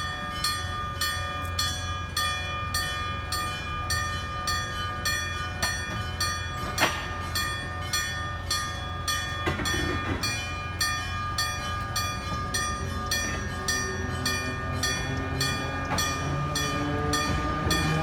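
Electromechanical railway crossing bell ringing on and on in an even, rapid beat of metal strokes, the warning that a tram is coming. Under it a low steady hum, and from about two-thirds of the way in a rising whine as a tram's traction motors speed up.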